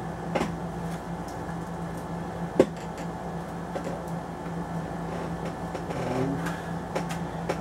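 Small objects handled and set down on a desk: a few light clicks and knocks, the sharpest about two and a half seconds in, over a steady low hum.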